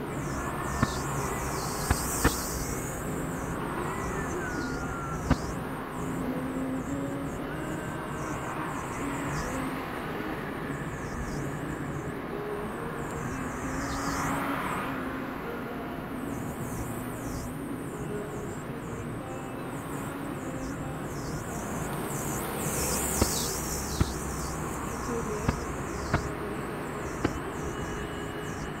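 Steady road and engine noise of a car cruising on a highway, heard inside the cabin, with several sharp clicks or rattles a few seconds in and near the end.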